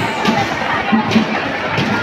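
Protest crowd chanting and shouting together, many voices in a rough, repeating rhythm.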